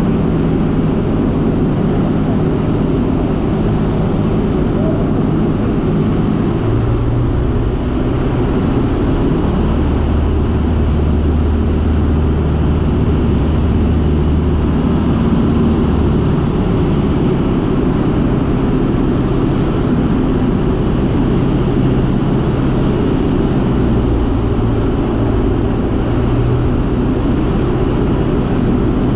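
Cessna 150's four-cylinder Continental O-200 engine and propeller droning steadily in flight, heard inside the small cabin, with air noise around the airframe. The low hum wavers slightly in pitch every few seconds.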